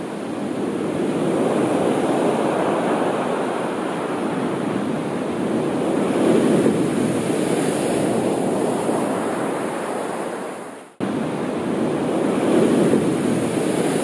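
Sea waves breaking and washing onto the shore, swelling every four to six seconds. The sound drops out sharply for a moment about eleven seconds in, then resumes.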